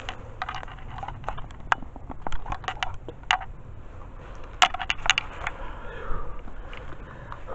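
Footsteps crunching through dry leaf litter and twigs: an irregular run of crackles and snaps, the loudest about four and a half seconds in.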